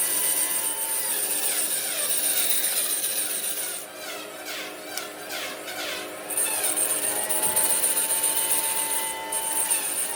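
A power tool working wood, running with a steady hiss. It stops for about two seconds in the middle and again briefly near the end.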